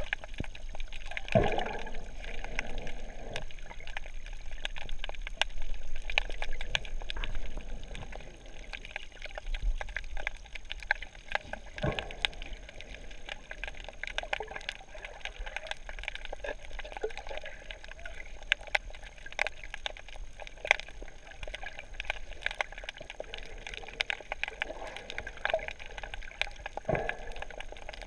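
Underwater sound through a GoPro housing: a scuba diver's breathing and exhaled bubbles gurgling now and then, over a steady hiss with frequent faint crackling clicks.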